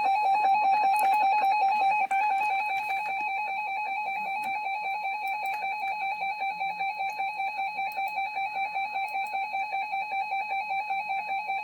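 Emergency Alert System attention signal: the 853 and 960 Hz two-tone electronic alarm held steady, with a brief dropout about two seconds in. It announces the spoken emergency message that follows.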